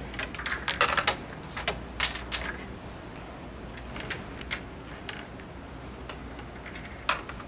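Wooden crokinole discs clicking against one another and the board as they are handled: a quick run of clicks in the first two seconds, a few more about four seconds in, and one sharper click near the end.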